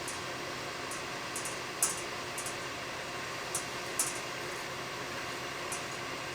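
Steady airy hiss of a hot-air blower heating the solder and bismuth melt, with about six faint, sharp ticks scattered through.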